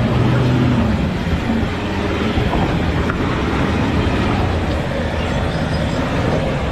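Vehicle engine running hard under load, with a steady noisy rush and a low pitch that shifts slightly, while an SUV stuck in deep river water is pulled out.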